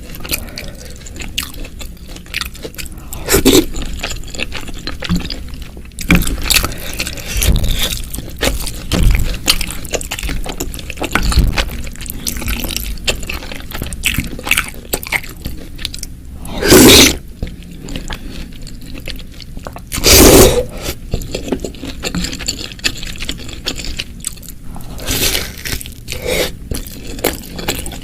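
Close-miked eating of spicy meatball soup with noodles, crackers and chicken feet: wet chewing, crunching and scraping, with many short clicky mouth and utensil sounds. Two much louder sounds, each about half a second long, come about 17 and 20 seconds in.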